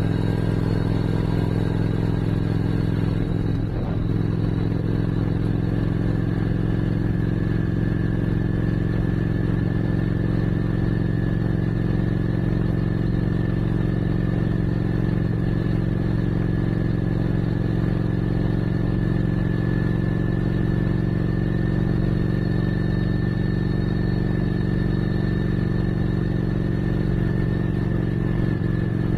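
Motorcycle engine running at a steady cruise, picked up by cameras mounted on the bike, with a brief drop in pitch about three and a half seconds in before it settles back.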